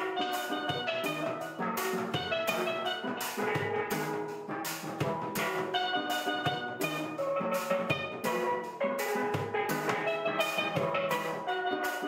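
Caribbean-style background music: a steel pan melody over drums with a steady beat.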